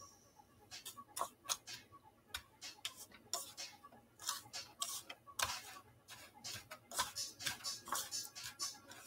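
Quiet, irregular light clicks and scratchy crackles of hands coating croquettes: dipping them in wet batter and rolling them in dry breadcrumbs in bowls.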